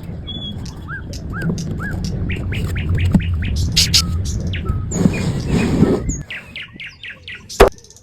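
Birds chirping in a quick run of short calls over a low steady rumble that cuts off about six seconds in, followed by a single sharp click near the end.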